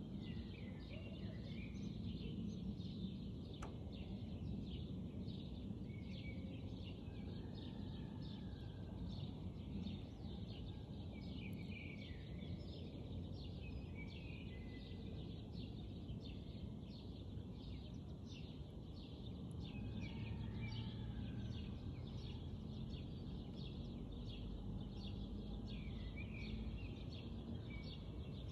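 Many small birds chirping and calling over a steady low background noise.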